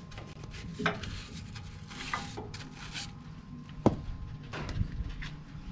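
Rubbing and scrubbing on the bare steel floor of a stripped bus as the metal is cleaned back with turpentine, with scattered clicks and knocks and one sharp knock about four seconds in.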